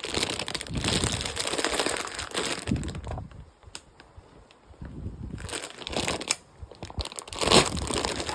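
Plastic packaging crinkling and crackling as a new parts package is worked open by hand, in two spells with a short lull between them.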